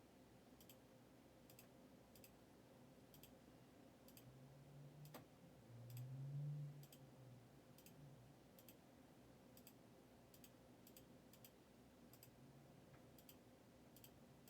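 Faint, irregular clicking of a computer keyboard, a click every half second to second, with a brief low hum about four to seven seconds in.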